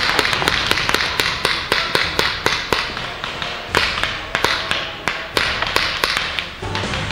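Paintball markers firing in rapid, irregular volleys of sharp pops, several a second, with a brief lull about three seconds in.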